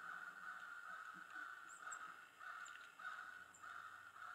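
Crows cawing faintly, a long run of harsh caws coming a little under two a second, with a few thin high chirps from small birds.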